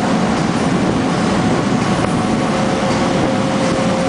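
Boat under way: its motor running steadily under a constant rush of water and wind, with a faint steady hum through it.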